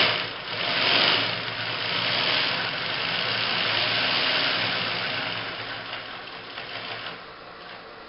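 Two-needle, triple-feed industrial sewing machine running at speed with a steady mechanical whir, easing off over the last few seconds.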